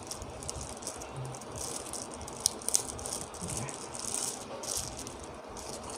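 Clear plastic bag crinkling and rustling in irregular bursts as a clamp meter is unwrapped from it, with two sharp ticks about two and a half seconds in.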